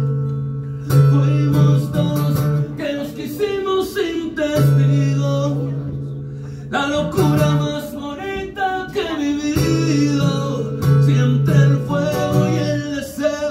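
A man singing live, accompanying himself on strummed acoustic guitar, with long held notes.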